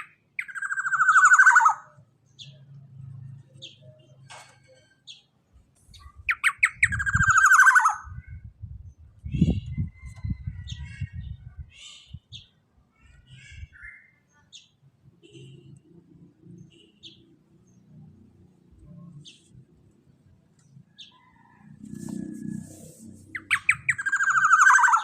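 Black-naped oriole (kepodang) giving a harsh, buzzy, falling call three times: twice in the first eight seconds and once near the end. Faint short chirps and a low rumble come in between.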